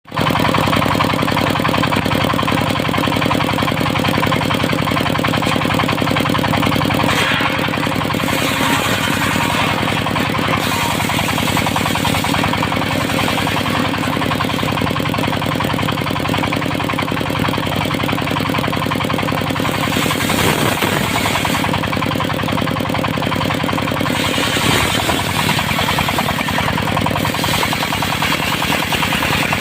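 Engine-driven circular sawmill running at speed, the engine beating with a fast, steady knock. The blade's cutting noise swells and eases several times as it works through teak.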